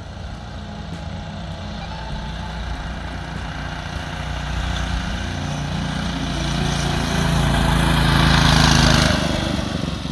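Predator 212 single-cylinder four-stroke engine on a mini bike, running under throttle. It gets louder and rises in pitch, peaks near the end, then drops off suddenly.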